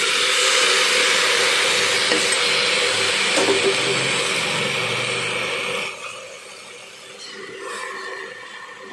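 Wet, freshly washed spinach leaves going into hot oil in a pressure cooker and sizzling with a loud, steady hiss. About six seconds in the sizzle falls away sharply to a fainter hiss.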